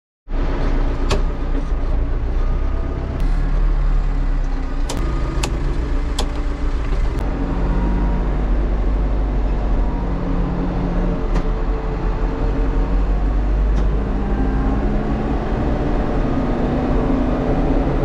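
Backhoe loader's diesel engine running steadily as heard from inside the cab while the machine drives, its pitch shifting a little with speed. A few sharp clicks sound in the first several seconds.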